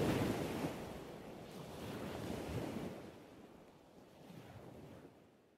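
Steady rain falling and splashing on wet ground, a even hiss that gradually fades away to nothing by the end.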